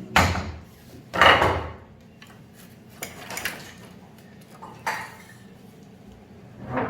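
Several separate knocks and clatters of hard objects being handled or set down, about six in all, the loudest about a second in.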